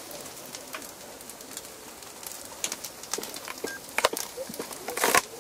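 A dove cooing in the background, with scattered light clicks and knocks and a short louder rustle near the end.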